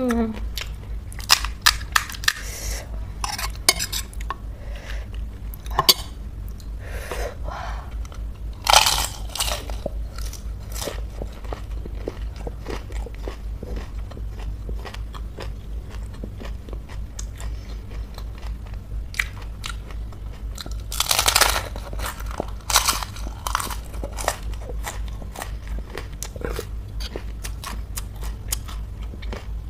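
Close-miked crunching and chewing of pani puri, the crisp puri shells cracking between the teeth in many short sharp crunches, with a few louder rushes of noise now and then, over a steady low hum.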